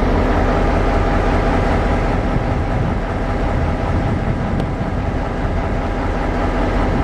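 Diesel freight locomotives running, a loud steady rumble and hum.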